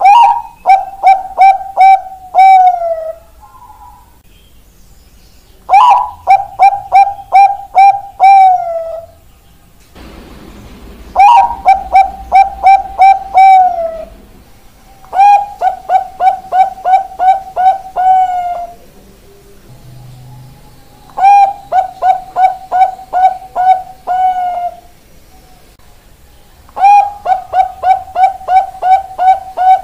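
Zebra dove (perkutut Bangkok) singing: six song phrases about every five seconds. Each opens on a higher note, runs into a quick string of about eight to ten even coos, and ends on a longer falling note.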